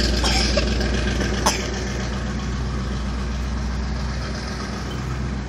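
Large truck engine idling with a steady low rumble, with a single sharp tap about a second and a half in.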